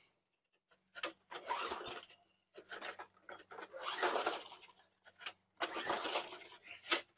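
1999 Yard Man 12A-999L401 walk-behind mower's engine being pull-started again and again, each pull cranking for a second or two without the engine catching. The owner wonders whether it has lost spark again or is not getting fuel.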